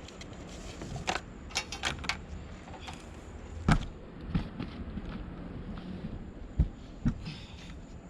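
Scattered clicks, taps and knocks of electrical wires and small parts being handled and routed into an RV air conditioner, over a steady low hum.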